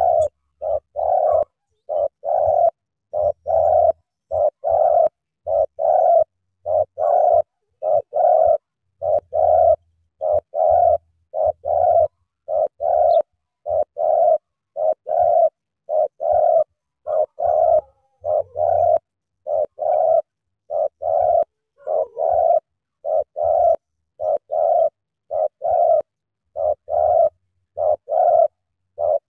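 Spotted doves cooing: a long, even series of short coos, about one a second, many of them in close pairs.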